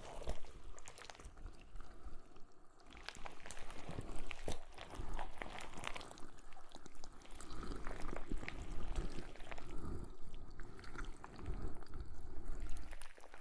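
Close, wet squelching and sticky crackling on a binaural microphone, irregular and continuous, standing in for slimy octopus tentacles massaging the head.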